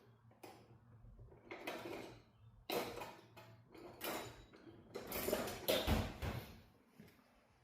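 Metal hand tools clinking and clattering as screwdrivers are rummaged through and handled, in several irregular bouts with the loudest near the middle and toward the end.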